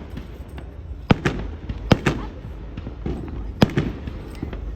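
Fireworks bursting overhead: three loud sharp bangs, about a second, two seconds and three and a half seconds in, with fainter pops and crackles between them.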